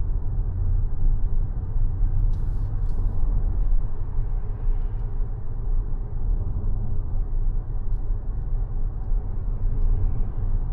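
Mazda 6e electric sedan driving along: a steady low rumble of road and tyre noise, with two short high hisses about two seconds in.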